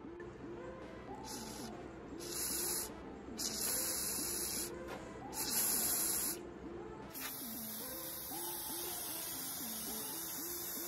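Aerosol spray paint can hissing in four short bursts, then spraying steadily for the last few seconds, as the pump parts are painted green. Soft background music with a repeating melody plays underneath.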